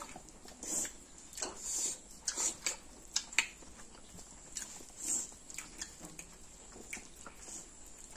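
Close-up eating by hand: wet chewing and lip smacks, with fingers squishing rice and chicken curry, coming as irregular short smacks.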